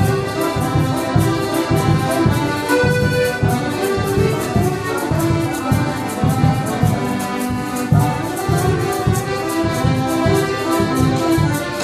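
Ensemble of piano and button accordions playing an Antillean (Curaçao-style) waltz, with percussion ticking out an even beat about three strokes a second.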